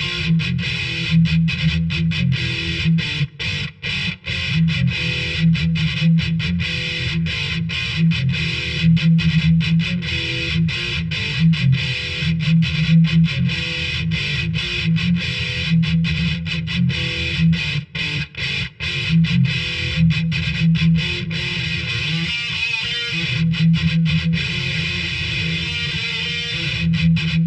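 Heavily distorted electric guitar through the BIAS FX 2 amp simulator, playing tight, rhythmic metal riffs with many short, clipped stops between the chords. Twice the playing drops out for a moment: once a few seconds in, and again about two-thirds of the way through.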